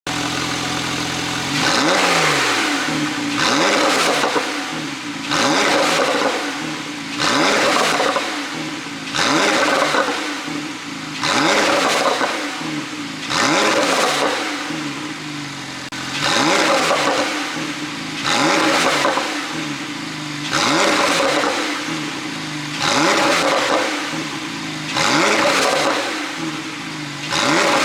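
Porsche 911 Carrera 4 GTS twin-turbo flat-six, heard through a tuned exhaust, being blipped over and over from idle: about a dozen quick rises in revs, roughly one every two seconds, each dropping back toward idle.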